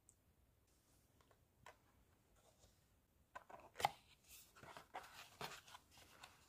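Paperboard eyeshadow palette packaging being unfolded by hand. It is faint for about three seconds, then comes a flurry of paper rustles and clicks with one sharp snap of the card near the middle.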